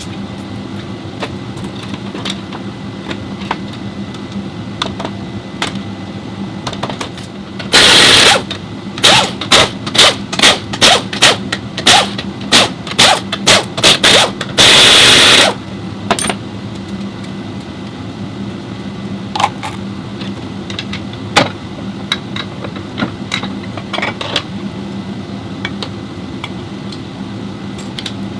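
Loud bursts from a compressed-air tool: one long burst, then about ten short ones at roughly two a second, then another long one, over a steady machine hum. Light metallic clicks follow near the end.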